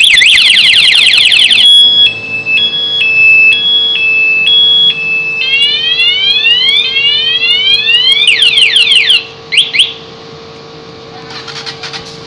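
Aftermarket one-way motorcycle alarm siren sounding during a test of the newly installed alarm. It steps through its tones: a fast warble, then a two-tone high–low alternation, then a run of quick rising whoops. It cuts off about ten seconds in.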